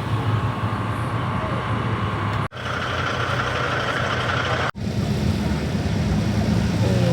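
Maserati/Ferrari F136 4.2-litre cross-plane V8 in a Honda S2000 running at a steady pitch, heard in three pieces with two abrupt cuts.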